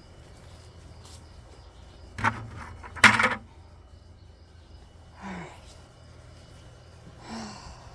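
A bucket being put back: a sharp knock about two seconds in, then a louder clatter just after, with two soft short sounds later on.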